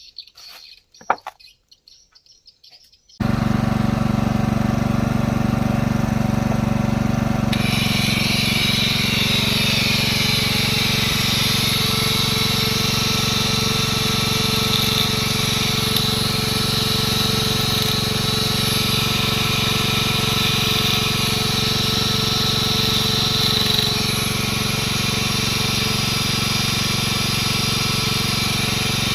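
Angle grinder switched on about three seconds in and running steadily; from about seven seconds its disc bites into metal with a harsh, high hiss over the motor, easing a little near the end.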